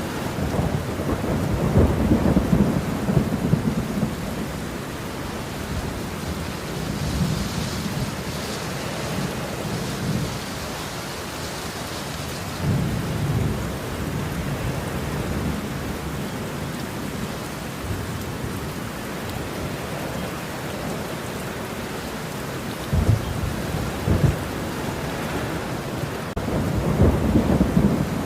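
Thunderstorm: steady heavy rain, with low rolls of thunder that swell and fade several times, strongest at the start and near the end.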